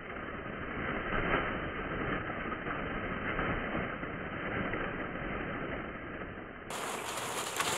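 Masses of ping pong balls rustling and clattering as a puppy bounds through them, heard as a muffled, continuous rushing noise. Near the end it turns suddenly brighter and clearer.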